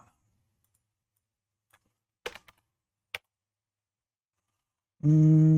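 A few sharp, isolated clicks at a computer keyboard and mouse, spaced about half a second to a second apart over a near-silent room, then a man's voice holding one long drawn-out vowel near the end.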